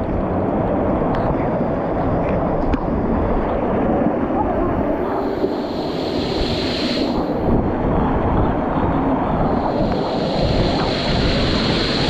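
Hot spring waterfall pouring and splashing close to the microphone, a steady, loud rushing of falling water with spray striking the camera.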